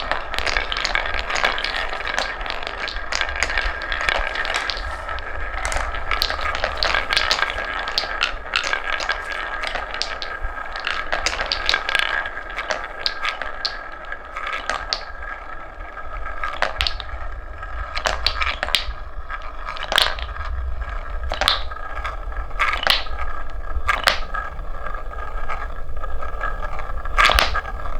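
Wooden balls rolling down a wooden marble-run track: a continuous rolling hum with many sharp wooden clacks as the balls hit the track and each other, thick at first and sparser past the middle.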